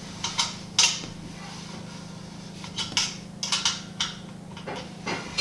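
A small metal wrench clicking and clinking against a nut and bolt as it is tightened on an Anvil Foundry brewing kettle, about ten light, sharp taps at uneven intervals. A steady low hum runs underneath.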